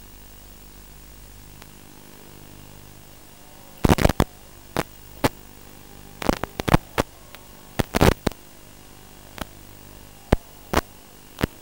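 Steady hum and hiss from the audio channel of an analog FPV video link. From about four seconds in it is broken by irregular, sharp crackles of static as the video signal breaks up.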